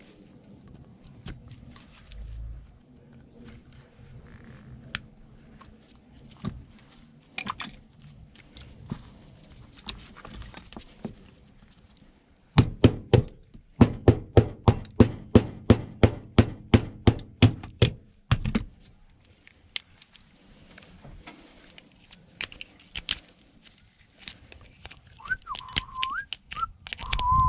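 Scattered clicks and taps of tools and small parts during a scrap electrical teardown, then a rapid run of about twenty loud knocks over some six seconds, about three a second, before the light clicking resumes.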